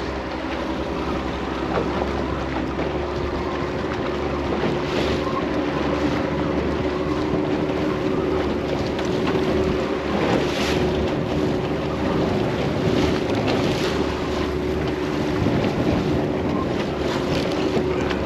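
Outboard motor running steadily as a small boat trolls through choppy water, with water rushing along the hull and wind buffeting the microphone. Louder splashes of water come now and then.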